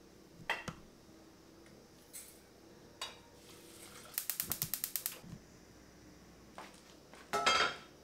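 Stainless steel kitchen pots being handled, with several sharp knocks and clinks. About halfway through there is a quick, even run of about a dozen ticks in a second, and a louder clatter comes near the end.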